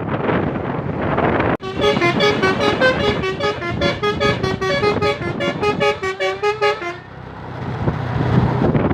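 Basuri multi-tone telolet horn playing a quick tune of short, stepping notes for about five seconds, starting about a second and a half in. Wind buffeting on the microphone is heard before and after it.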